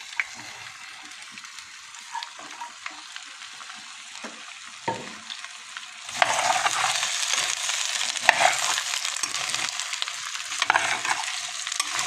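Diced squash and carrots frying in hot oil in a clay cazuela (cazuela de barro), stirred with a spoon. A softer hiss with a few sharp clicks gives way about halfway through to a much louder, crackling sizzle.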